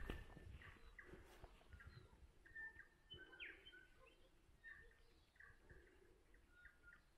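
Faint short bird chirps, a dozen or so scattered through, one a quick downward sweep, over quiet outdoor ambience.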